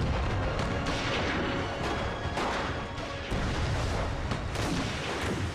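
Battle-scene sound effects of field artillery firing and shells exploding, one blast after another every half second to a second over a continuous rumble, with a music score underneath.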